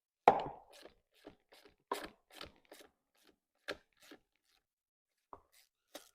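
Irregular metal clicks and light knocks of a quarter-inch drive ratchet and 8mm deep socket undoing a nut on a chainsaw's cover, with one sharp knock about a quarter second in.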